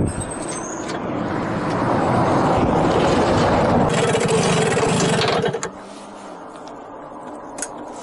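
Kreidler Florett moped's 50 cc single-cylinder two-stroke engine running with wind on the microphone, then holding a steady idle and cutting out suddenly about five and a half seconds in: the engine dying as the fuel tank runs dry.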